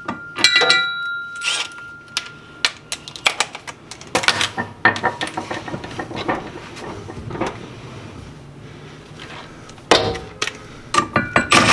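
Scattered metallic clicks, knocks and taps of hand tools and bolts against the rear differential housing and the car's underside. A short ringing clang comes near the start, and there are louder clusters of knocks in the middle and near the end.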